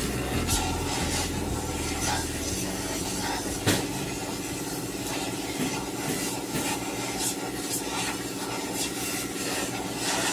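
Oxy-fuel torch flame roaring against the bent front chassis member, then cutting off about two and a half seconds in. A steady machine hum runs underneath, with scattered metallic clicks and a sharp knock near four seconds in.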